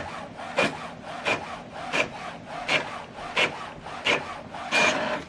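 HP OfficeJet Pro 9120e inkjet printer printing, its print-head carriage sweeping back and forth in a steady rhythm of about three swishes every two seconds.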